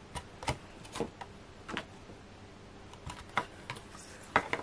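Light, irregular taps and clicks of card stock being handled and pressed together, about ten short knocks spread unevenly, with a pair close together near the end.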